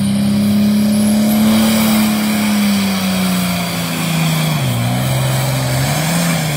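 Turbocharged International pulling tractor's diesel engine running flat out under load as it drags the sled, loud. Its pitch rises slightly, then falls about two-thirds of the way through and wavers as the engine slows under the weight.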